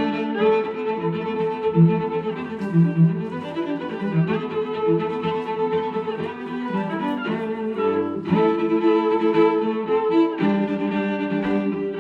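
Music led by bowed strings, played back through an Anker Soundcore portable Bluetooth speaker for a sound test, with thin low bass.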